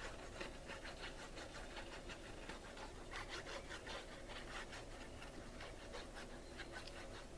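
Nozzle of a liquid glue squeeze bottle scraping and ticking along card stock as a line of glue is laid down, with light rustling of the paper; irregular faint scratches, several a second, over a faint steady hum.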